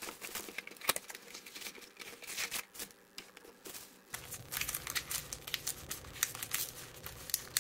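Cardboard box and trading-card pack wrappers being handled: a busy run of crinkling, rustling and small tearing crackles as the box is opened and the packs are pulled out.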